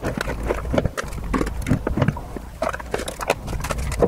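Small cosmetic and nail-care items clicking and clattering against each other and the drawer as they are rummaged through and sorted by hand, in quick irregular knocks.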